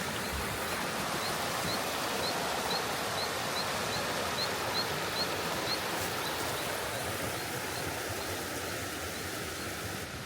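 Steady rush of a rainforest river's flowing water. A short high chirp repeats evenly about twice a second over it for most of the first half.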